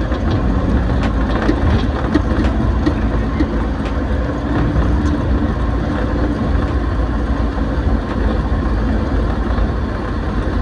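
Motorcycle engine running steadily while riding along a road, heard from on the bike: a steady low engine note over road noise.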